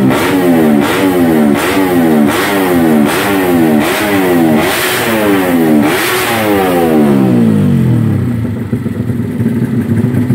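Race-prepared Yamaha MX King's single-cylinder four-stroke engine revved in quick repeated throttle blips, about one every three-quarters of a second, each rising sharply and falling back. About six seconds in the revs run down and it settles to a pulsing idle.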